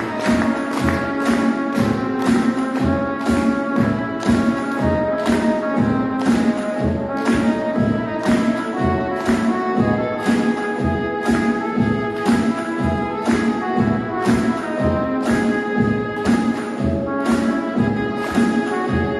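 Music with brass instruments over a steady beat.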